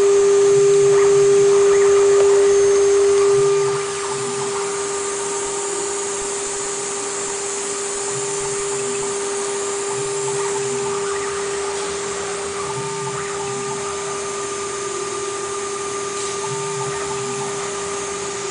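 Water-cooled spindle of a small DIY CNC router running with a steady high whine while engraving the top layer off Rowmark engravable plastic. It gets quieter about four seconds in, and a lower hum comes and goes underneath.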